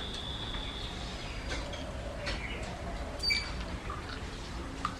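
Birds calling in the background, with a held high whistling note at the start, short chirps about three seconds in and soft cooing, over the small clicks and smacks of people eating rice by hand.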